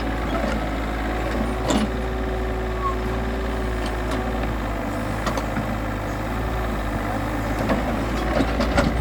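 Mini backhoe's engine running steadily, with a few sharp knocks scattered through it.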